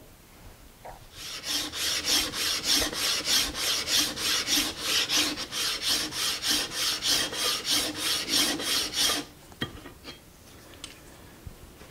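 The cast-iron sole of a Harbor Freight No. 33 bench plane is being lapped back and forth on a coarse, about 200-grit, diamond plate to flatten its rough grind. It makes a rhythmic rasping scrape at about four strokes a second, which starts about a second in and stops about nine seconds in.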